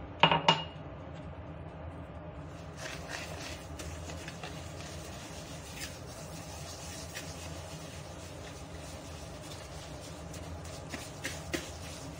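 A brief, loud clink of dishware near the start. Then a whisk beats eggs, sugar and yogurt in a plastic bowl, with light, irregular tapping and scraping and a few sharper clicks near the end.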